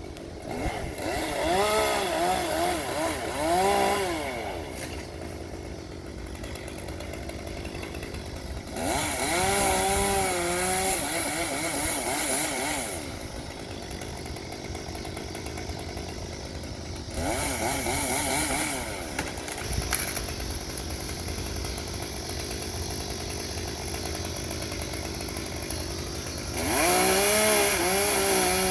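Gas chainsaw revving up to cut in four bursts of a few seconds each, its pitch wavering as it bites, and running quieter at idle in between.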